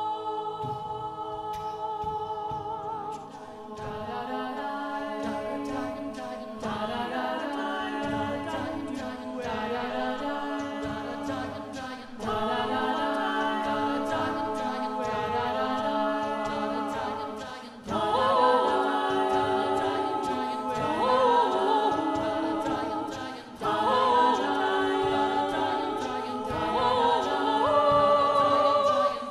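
Mixed a cappella vocal ensemble singing an SSATB (five-part) arrangement into microphones, with sustained upper chords over a pulsing bass line and a woman singing lead. The singing gets louder partway through.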